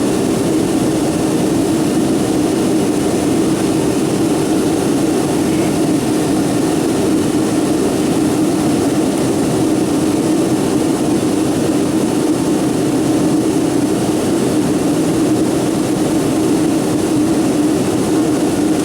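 Steady jet engine and airflow roar of a Boeing 757-200 in flight, heard inside the passenger cabin, with a constant low hum at an even level.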